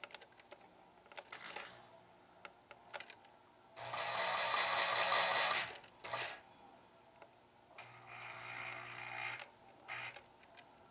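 Model railroad layout running, with scattered small clicks and rattles. About four seconds in comes a loud hissing burst lasting nearly two seconds, then a weaker one a few seconds later.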